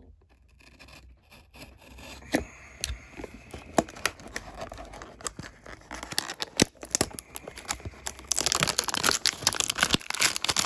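A trading card hanger box being torn open by hand, its packaging ripping and crinkling in scattered short rustles and clicks, then a denser, louder spell of tearing and crinkling from about eight seconds in.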